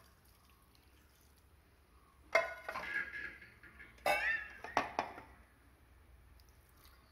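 Metal cookware clanking: a frying pan, spatula and steel vessels knocked against each other and the counter. There are four sharp clanks, each with a short ring, between about two and five seconds in.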